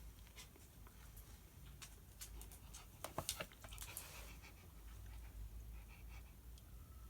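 Faint desk sounds of studying: scattered small clicks, then a louder burst of paper rustling and sharp clicks about three seconds in, as of a workbook page being handled or turned.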